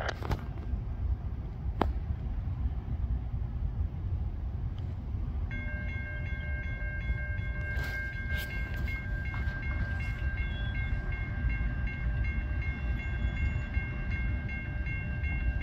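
Railroad grade-crossing warning bell starts about five seconds in: an evenly repeating electronic ding, with the crossing activating for an approaching train. A low steady rumble runs underneath.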